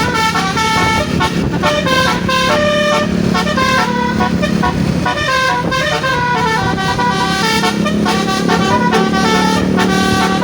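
Basuri telolet horn on a bus playing a melody of short stepped notes, over the steady low drone of the bus engine.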